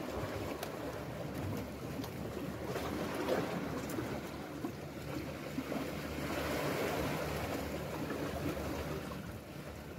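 Sea waves washing against shore rocks, with wind on the microphone; the wash swells a little about six seconds in.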